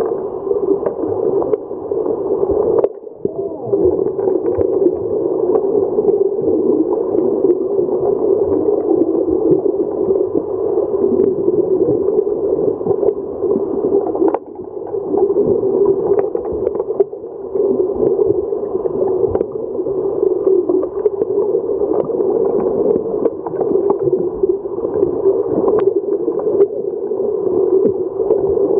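Underwater hockey game heard through a submerged camera: a steady, muffled churning of water from finning swimmers, with faint scattered clicks.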